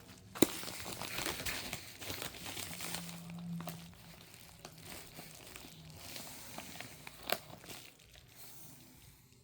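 Plastic packaging crinkling as it is handled, with a sharp click about half a second in and another about seven seconds in, growing quieter near the end.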